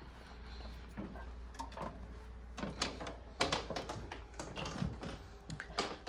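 Fifth-wheel RV entry door and footsteps on its fold-out metal entry steps while going inside: a run of knocks and clicks starting about a second in, thickest a little after three seconds in.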